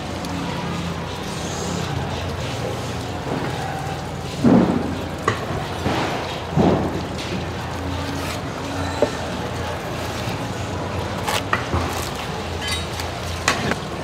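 Steady background hiss and hum while a knife works through a tuna loin on a cutting board, with two dull knocks about four and a half and six and a half seconds in and a couple of sharp clicks near the end as the fish and tools are handled.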